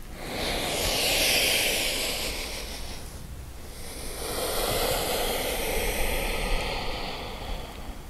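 A person breathing slowly and audibly: two long breaths of about three seconds each, the second beginning about four seconds in.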